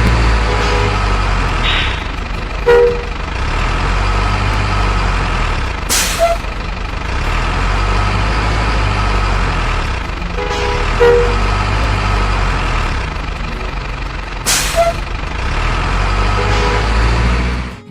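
Heavy truck engine running steadily, with a few short horn toots and two brief sharp hisses like an air brake releasing. It cuts off suddenly at the end.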